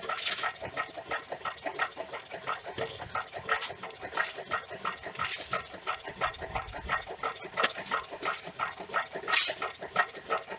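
Homemade coal-fired Stirling engine generator running with a fast, even beat. Over it a metal shovel scrapes and clinks now and then as hot coals are pulled out of the firebox onto a tray, drawing the fire to shut the engine down.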